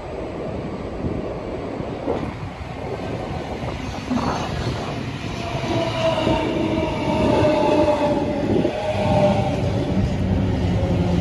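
Electric passenger train moving along a station platform: a rumble that grows louder, with a steady whine joining in from about six seconds in.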